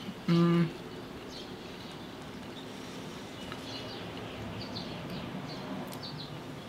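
A short closed-mouth "mm" hum, held on one pitch, about half a second in, while tasting a mouthful of mug cake. Then faint chewing.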